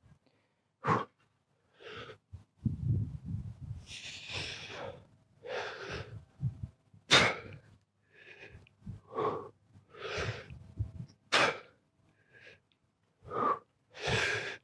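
A man's short, forceful breaths as he does chin-ups, about one a second, with low rumbling in places between them.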